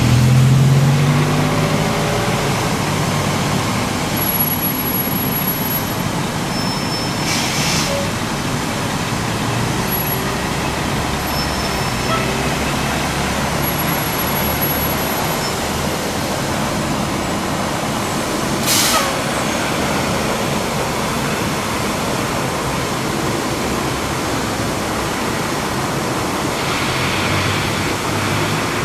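Steady rushing of water shooting up from a fire hydrant sheared off in a vehicle crash, the main flowing unchecked. A heavy truck drives past close by at the start, and two short hisses come about 7 and 19 seconds in.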